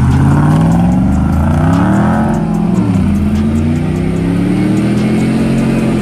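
Two Jeeps' swapped-in 6.0 and 6.2 litre engines revving hard under load while pulling against each other on a tow strap. The pitch climbs, drops about three seconds in, climbs again and falls off near the end, with tyres spinning in snow.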